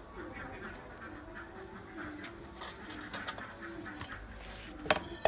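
Ducks quacking in short repeated calls, with two sharp knocks near the end.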